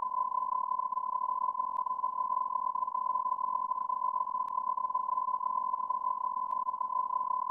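A steady, unbroken electronic beep tone, held at one pitch, with a few faint clicks now and then.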